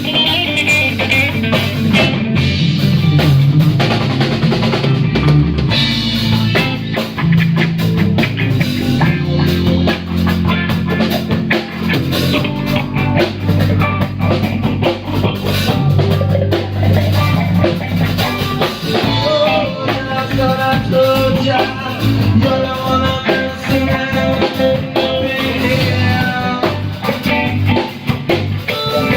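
A band playing an instrumental jam: a drum kit keeping a steady beat, with rimshots, under a guitar.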